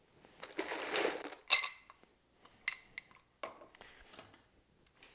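Fresh ice being put into a rocks glass: a short rattle of ice cubes, then sharp clinks of large cubes against the glass about a second and a half in and again near three seconds, followed by a few lighter knocks.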